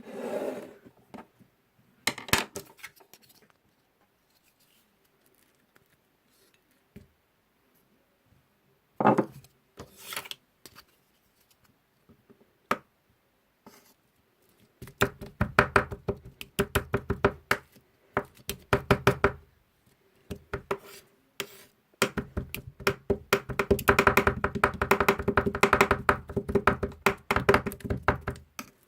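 Metal spatulas chopping and tapping on the cold steel plate of a rolled ice cream maker, working apple into the ice cream base. A few separate knocks come in the first half, then long runs of quick, sharp taps from about halfway in.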